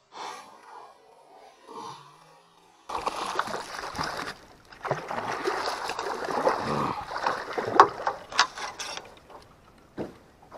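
A hooked bowfin thrashing at the surface beside the boat, its splashing loud and churning for several seconds from about three seconds in. A few sharp knocks near the end.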